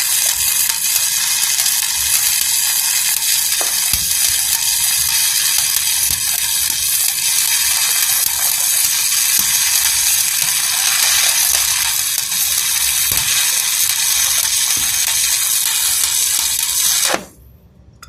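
Electric arc welding: the arc gives a steady, loud crackling hiss with a few sharper pops, then cuts off suddenly about seventeen seconds in as the arc is broken.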